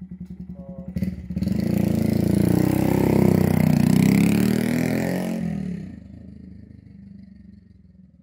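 Honda Monkey 125's single-cylinder engine, running through an Akrapovič exhaust with its header pipe, idles, gives a short clunk about a second in, then revs up hard as the bike pulls away, its pitch rising and falling through the gears. The sound fades into the distance over the last few seconds.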